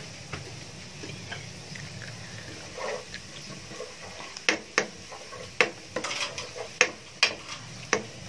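Metal ladle stirring minced garlic frying in oil in a nonstick pan: a quiet sizzle, then from about halfway a run of sharp clinks and taps as the ladle knocks against the pan.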